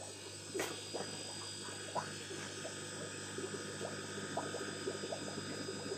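Water bubbling and gurgling in small irregular pops over a steady hum of aquarium pumps and filters, with a light knock about half a second in.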